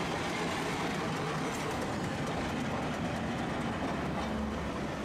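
Tosaden streetcar running past close by on street-embedded rails and moving away, a steady rolling rumble of wheels and motors on the track.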